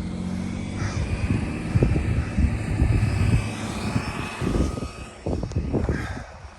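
A steady distant engine drone with a faint high whine, over irregular low rumbles and thumps.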